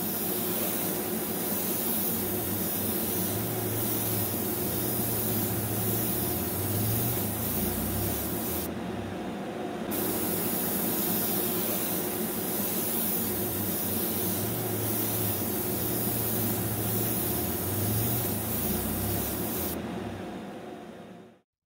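Steady hiss of spraying air with a low hum underneath, running without a break; it cuts off abruptly near the end.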